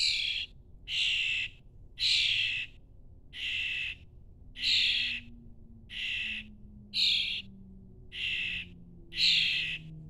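Fledgling songbirds giving harsh, raspy begging calls, about nine of them, each about half a second long and coming about once a second.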